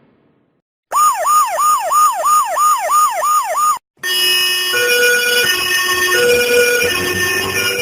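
A siren-style sound effect: an electronic tone that swoops down in pitch and jumps back up, about three times a second. It cuts off abruptly after about three seconds. A different effect follows, a cluster of held electronic tones that step from pitch to pitch.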